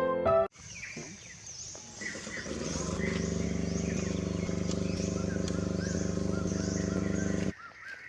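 Piano music ends about half a second in, giving way to birds chirping. From about two and a half seconds in, a steady low engine hum runs under the birdsong and cuts off suddenly near the end.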